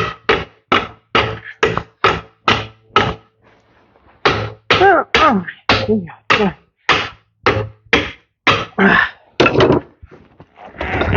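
Hand hammer striking a stuck part on a Ford 7610 tractor in a steady run of blows, about three a second, pausing briefly after about three seconds and then carrying on. A few of the blows leave a short ringing tone that falls in pitch. The part is stubborn and not coming apart.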